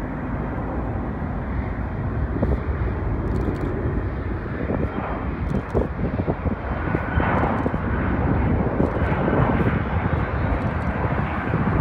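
Distant jet noise from a private Embraer ERJ-145's twin turbofans as it lands and rolls out along the runway, a steady sound that grows a little louder from about seven seconds in.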